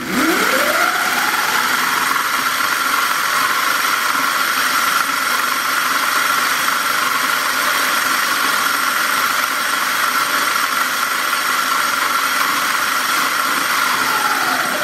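Electric scooter's chain-drive motor spinning the raised rear wheel: a whine rises as it spins up over about a second, then holds steady with a hiss from the freshly oiled chain, and starts to fall away at the very end.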